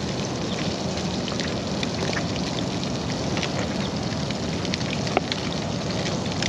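Sheepshead frying, a steady sizzle full of fine crackles and pops.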